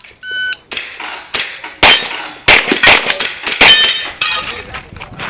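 Shot timer start beep, then a rapid string of pistol shots fired in quick pairs and runs, about a dozen sharp cracks with short pauses between target arrays.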